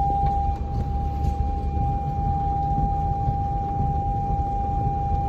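A steady, unbroken electronic tone at one pitch, held without change, over the low rumble inside the cabin of a Land Rover Discovery driving through floodwater.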